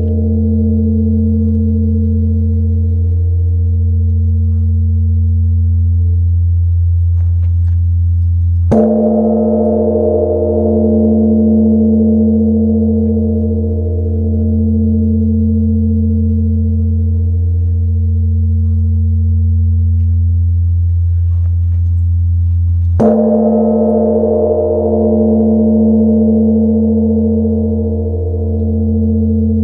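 Korean Buddhist temple bronze bell (beomjong) struck twice, about fourteen seconds apart, each strike followed by a long ringing decay over a deep hum. The ringing wavers, swelling and fading every couple of seconds.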